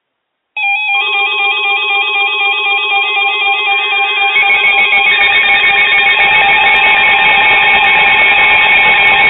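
Several weather alert radios sounding their alarm tones together, signalling a flood warning: a loud stack of rapidly warbling electronic tones that starts suddenly under a second in. A harsher layer joins about four seconds in, and the alarm grows slightly louder.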